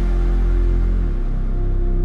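Background music: slow, sustained chords over a deep bass line that changes note about a second in.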